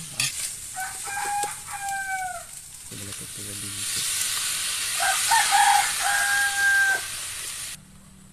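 A rooster crows twice, about a second in and again around five seconds in, over octopus sizzling in a wok as a spatula stirs it. The sizzle swells in the second half, then everything drops away abruptly near the end.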